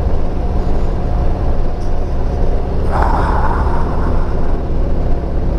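Harley-Davidson Street Glide Special's V-twin running at light throttle on a downhill run: a steady low rumble under rushing wind, with a brief louder rush about three seconds in.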